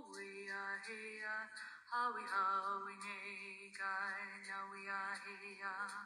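Music: a voice singing long held notes that waver and bend.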